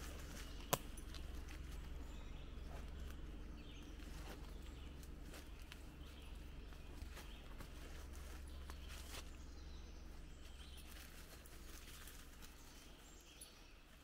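Faint footsteps and small clicks of someone walking on a forest floor, over a low steady rumble, with one sharp click just under a second in.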